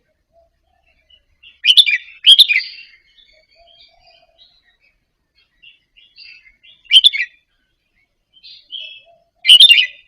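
Red-whiskered bulbul singing short, bright phrases: two close together about two seconds in, one about seven seconds in and one near the end, with soft twittering notes between them.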